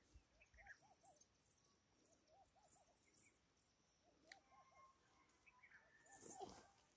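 Faint animal calls: short notes repeated in quick groups of three or four, about one group a second. A brief rustle of handling noise comes about six seconds in.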